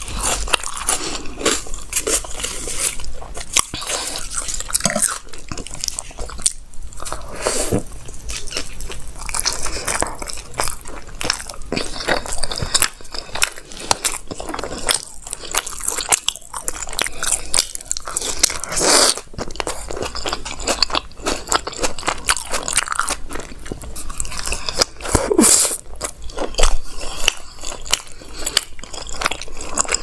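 Close-miked eating sounds: a person chewing and biting soft rumali roti dipped in chaap masala gravy, with a dense run of small mouth clicks and crunches.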